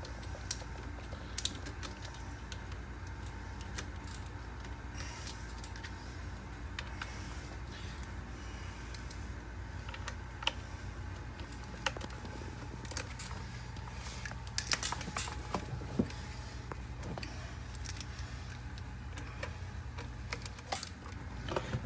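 Scattered light clicks, clinks and knocks of tools and pipe fittings being handled while a sump pump's check valve is disconnected, over a steady low hum.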